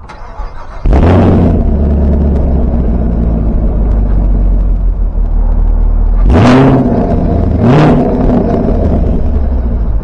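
Chevrolet Camaro SS's LT1 V8 exhaust starting up with a loud flare about a second in, then settling into a steady idle. Two quick throttle blips follow, the second about a second after the first, before it drops back to idle.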